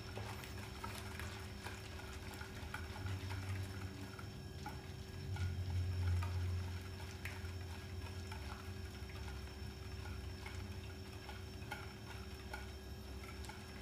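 Hand-held wire whisk stirring a liquid ice cream mix in a bowl: soft sloshing with light ticks of the whisk against the bowl, over a steady low hum.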